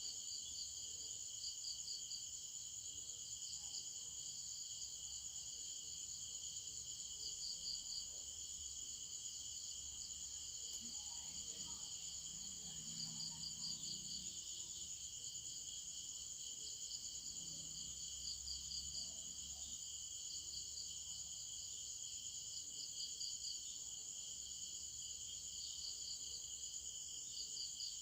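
Insects chirping steadily: a continuous high trill with short pulsing flurries that come and go every few seconds.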